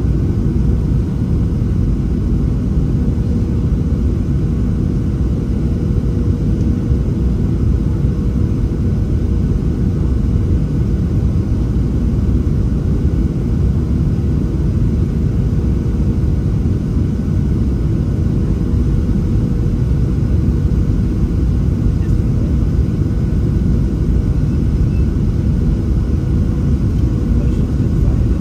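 Steady cabin noise inside a Boeing 737-700: a deep, even rumble of airflow and its CFM56-7B engines, with a faint steady hum over it.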